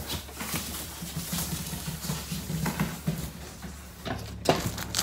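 An upholstered armchair being lifted and carried out through a doorway: scuffing and handling noise, with two sharper knocks about four seconds in as it bumps through.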